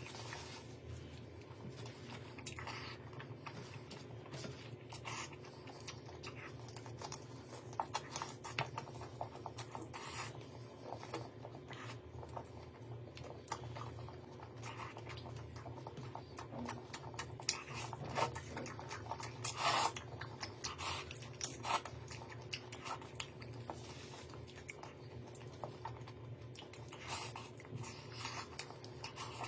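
Eating sounds: chewing, with scattered clicks and rustles of food and utensils handled, over a steady low hum.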